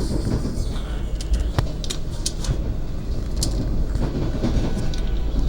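Argo Bromo Anggrek passenger train running on the rails: a steady low rumble of wheels on track, with occasional sharp clicks.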